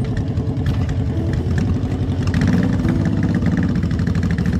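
A custom chopper motorcycle built on a Suzuki GSX750S, its engine running steadily through a fishtail exhaust pipe.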